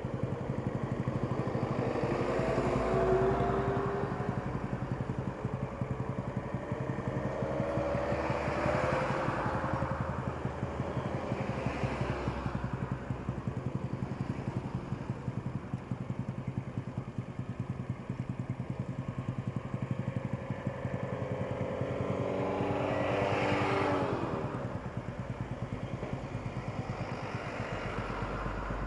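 Motorcycles riding past one after another, each engine growing louder and then fading as it goes by, about four times. Under them another engine keeps idling steadily.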